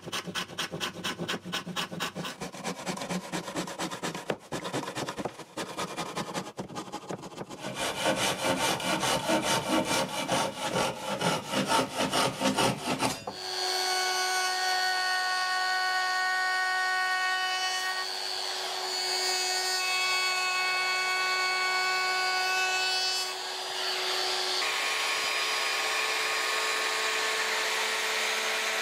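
Handsaw cutting through MDF in rapid back-and-forth strokes for about the first 13 seconds. Then an electric router starts, a compact DeWalt at first, running with a steady high whine as it rounds over the board's edges. Its tone changes about 24 seconds in.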